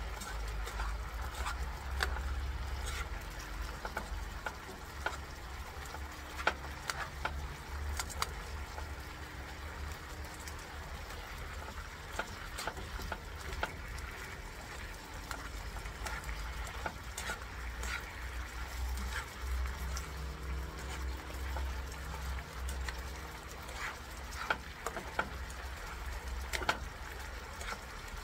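Chicken tocino bubbling and sizzling in its sauce in a frying pan, with metal tongs clicking and scraping against the pan as the pieces are turned. A low steady rumble runs underneath.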